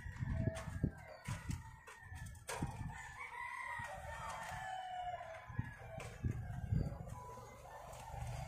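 A rooster crowing, one long call starting a little after two seconds in and a shorter one near the end, over low rustling and scattered knocks.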